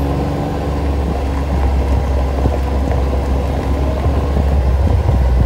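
Open side-by-side off-road vehicle running steadily along a dirt track, heard from on board: a constant deep engine and driving rumble with a few light knocks.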